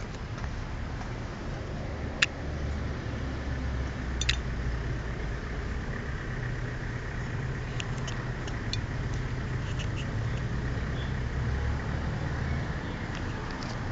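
Steady low background rumble, with two sharp clicks about two and four seconds in and a few fainter ticks in the middle.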